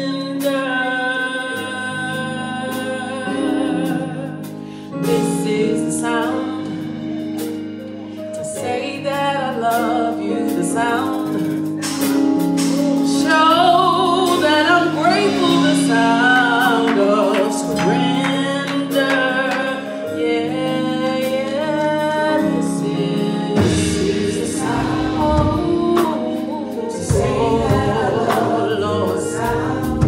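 Gospel praise singing by a small group of mostly female vocalists on microphones, over sustained keyboard chords. Deeper bass notes join in during the last quarter.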